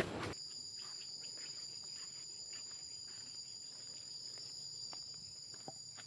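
Steady high-pitched insect drone, holding at two pitches, with a few faint ticks. It comes in as a louder rustling noise cuts off about a third of a second in.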